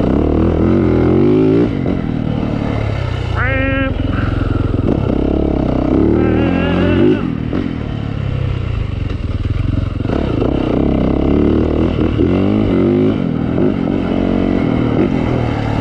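Dirt bike engine running under way, its pitch repeatedly rising and falling as the throttle is opened and eased off, with a sharp rev-up a little before four seconds in.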